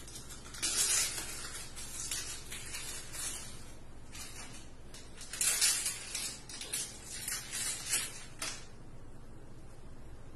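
Short hissing, rustling noises from a vet handling supplies at a steel exam table. The loudest come about a second in and again about five and a half seconds in, with smaller ones following until about two seconds before the end.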